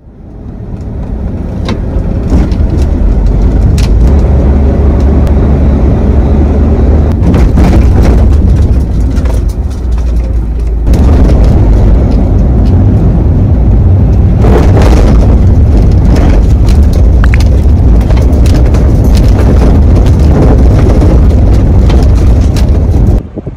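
Strong wind blasting the microphone: a loud, low rumble that fades in and changes abruptly about eleven seconds in.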